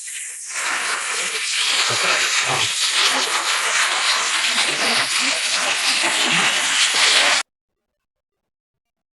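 Packaging being unwrapped and handled, a dense continuous crinkling and rustling with a few soft knocks, that cuts off suddenly about seven seconds in.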